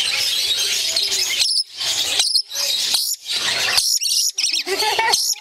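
Pet lories screeching in runs of high, harsh calls broken by short pauses, with a few lower squawks near the end: the birds are excited.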